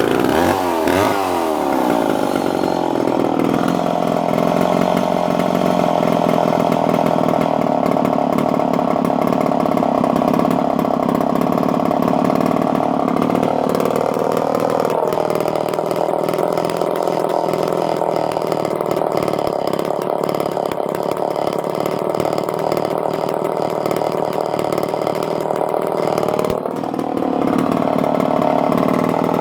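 Remington SL4 59cc two-stroke chainsaw engine catching on a restart and running steadily, its pitch wavering for the first couple of seconds. The pitch shifts up briefly about halfway through and again near the end.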